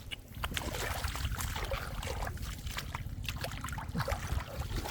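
Shallow floodwater splashing and trickling in short, irregular bursts.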